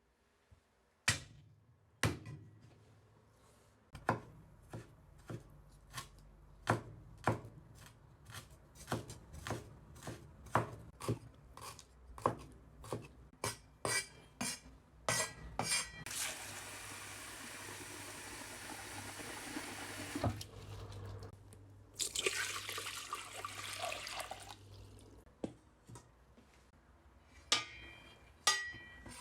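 Kitchen work at a counter: a long run of sharp knocks, about two a second, then a tap running for about four seconds and a shorter second gush of water. A few clinks near the end.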